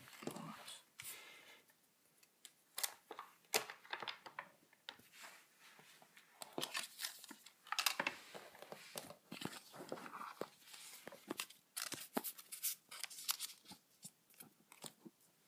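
Trading-card booster pack wrappers being torn open and crinkled by hand, along with cards being handled. It comes as a string of short, irregular rips and rustles with brief pauses between them.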